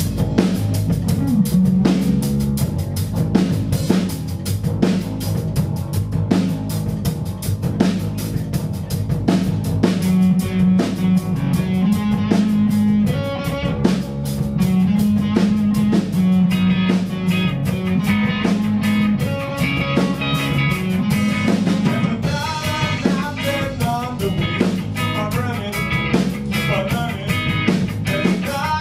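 A live rock band playing: drum kit keeping a steady beat over bass and electric guitar, the guitar lines growing busier about ten seconds in.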